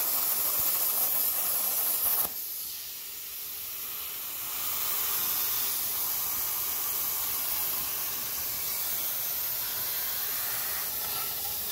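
Plasma cutter torch cutting steel plate with a loud, steady hiss that cuts off sharply about two seconds in. A weaker, steady air hiss carries on after it, typical of the torch's post-flow cooling air.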